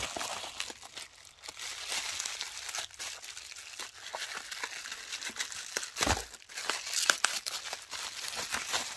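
Plastic bubble wrap crinkling and rustling as a small package is unwrapped by hand, with a dull knock about six seconds in.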